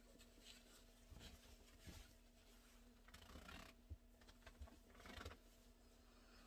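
Near silence: faint rustles and soft knocks of patchwork quilt fabric being handled, over a faint steady hum.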